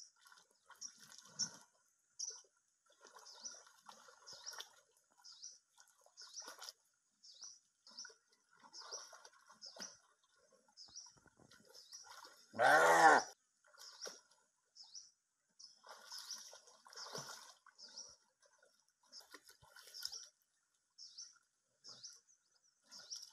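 Water splashing as a Komodo dragon holds a rusa deer under in a waterhole, while a bird chirps over and over in short high notes. About halfway through, the deer gives one loud distress call lasting under a second.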